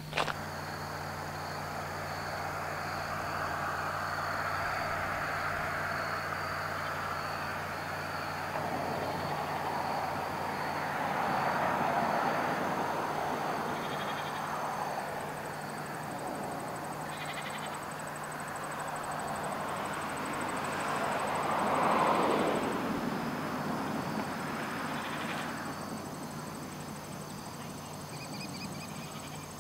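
Outdoor field ambience: insects trilling steadily in high thin tones over a low hum, with a broad rushing noise that swells twice, about twelve and twenty-two seconds in.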